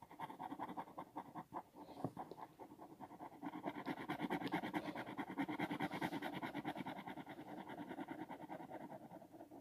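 Pen scribbling rapidly back and forth on paper while colouring in a drawing: a fast, faint scratchy rasp with a slightly squeaky edge, a little louder in the middle.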